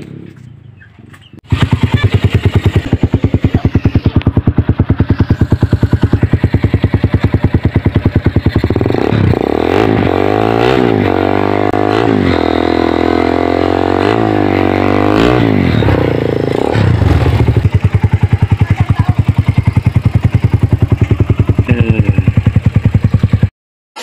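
Motorcycle engine heard through an aftermarket chrome muffler, loud. It comes in abruptly about a second and a half in and runs at a fast, even idle. It is revved up and down several times in the middle, then settles back to idle and cuts off just before the end.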